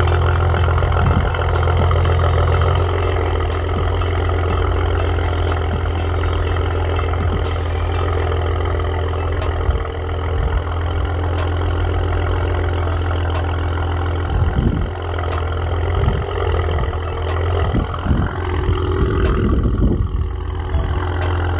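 Exhaust of a 2015 Maserati Ghibli SQ4's stock twin-turbo V6, heard from the tailpipes, running with a steady low drone at low speed in Sport Mode. Near the end the revs rise briefly and fall back.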